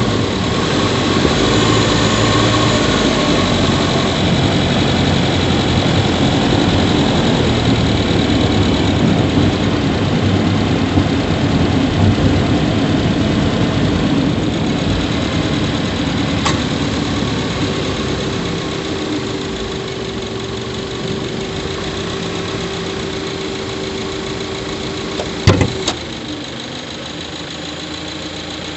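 Subaru Levorg 1.6GT-S's turbocharged 1.6-litre flat-four running, heard up close from inside the engine bay by the intake. It grows gradually quieter from about two-thirds of the way through, and a single sharp knock about 25 seconds in is the loudest sound.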